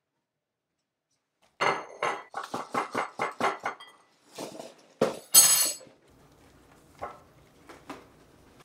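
Dishes clinking and knocking on a kitchen counter in a quick run of about eight knocks. A sharp knock and a brief rush of dry cereal poured from its box into a bowl follow.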